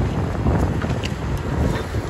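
Komatsu PC290LC hydraulic excavator's diesel engine running as the boom and bucket move, with wind buffeting the microphone.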